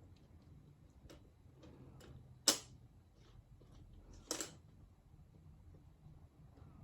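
Scattered light taps and clicks with two sharper knocks, the louder about two and a half seconds in and the second near four and a half seconds.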